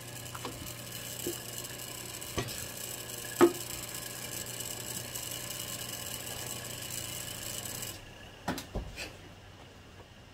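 A 20-ton Schwab clicker press's motor running with a steady hum, with a few light knocks as a steel die and leather are handled on its cutting board; the hum stops about eight seconds in, followed by a few sharper knocks.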